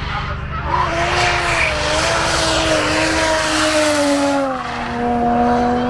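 Drift car engine held at high revs while the tyres squeal through a slide. The tyre noise stops about four and a half seconds in, and the engine note drops slightly and runs on steadily.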